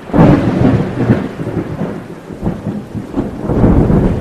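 Thunder with rain: a loud, low, noisy rumble that comes in suddenly right at the start, then rises and falls unevenly, swelling again near the end.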